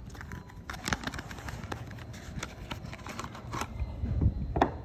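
Soap bars being handled, unwrapped or cut: a quick run of small dry crackles and scrapes, with a low thump about four seconds in.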